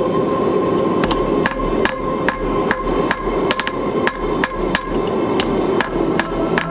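Blacksmith's hammer striking hot leaf-spring steel on an anvil, a run of sharp ringing blows about two to three a second.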